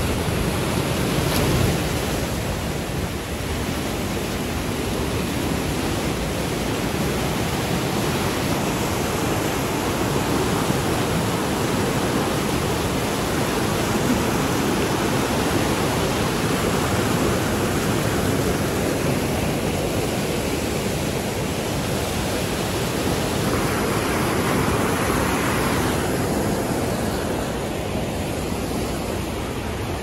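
Rushing whitewater of a waterfall cascading over rocks: a loud, steady rush of water.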